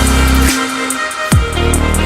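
Electronic dance music with heavy sub-bass: a deep bass note drops in pitch about a second in, over held synth tones and hi-hat ticks.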